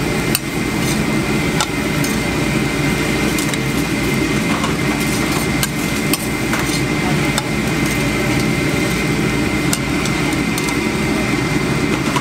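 Metal spatula scraping and clacking against a flat steel teppanyaki griddle as egg fried rice is pushed and tossed, with short strikes every second or so. Underneath runs a steady loud rumble and hum.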